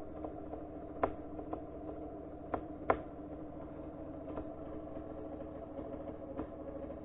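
Dirt bike engine running at a low, steady speed, with a few sharp knocks about a second in and again at about two and a half and three seconds.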